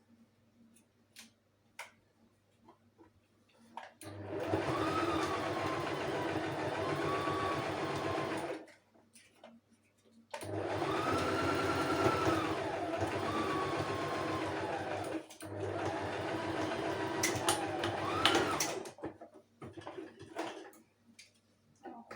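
Electric sewing machine stitching in three runs of a few seconds each, its motor whine rising and falling in pitch as the speed changes, with short pauses in between and small clicks while it stops.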